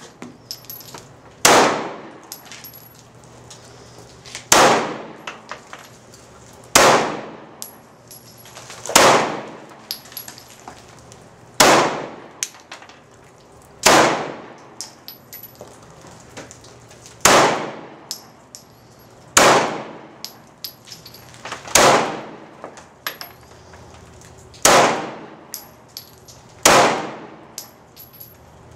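Gunshots fired one at a time at a steady pace, one about every two to three seconds, eleven in all, each with a short ringing tail.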